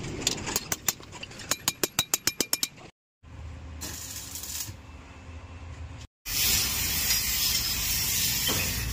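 Steel bar being bent and handled in a metalwork yard: a quick run of sharp, ringing metal clinks. The sound cuts out and returns twice, ending in a loud, steady hiss.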